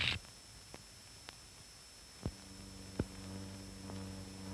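A loud burst of fast clicking cuts off right at the start. What follows is faint film soundtrack noise: a few scattered clicks and pops, then a steady low hum that sets in about two seconds in as the film runs out.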